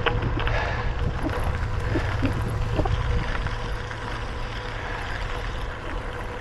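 Steady wind rumble on the microphone and road noise of a bicycle riding along, with a few faint ticks.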